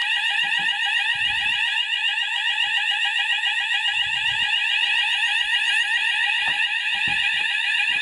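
Fire alarm sounders of a Hochiki ESP addressable fire alarm system sounding continuously, a loud, steady alarm tone with a fast repeating sweep: the system is in full alarm after a smoke detector test.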